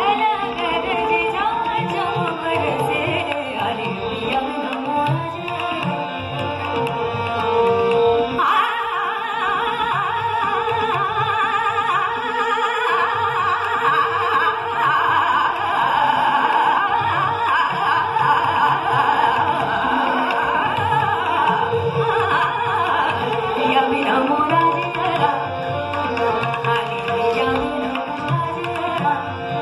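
Live Hindustani classical music: a woman singing a fast (drut) khayal in Raag Yaman over a tanpura drone, with tabla, harmonium and sarangi accompaniment. The music turns faster and denser about eight seconds in.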